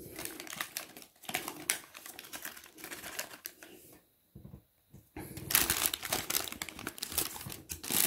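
Paper wrapping around fried chicken crinkling and rustling as it is handled and pulled open, with a louder, denser spell of crackling from about five seconds in.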